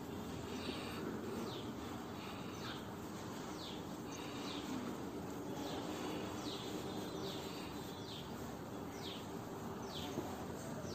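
A bird calling over and over: short, high chirps that fall in pitch, about one a second, with brief held notes between, over a steady background noise and low hum.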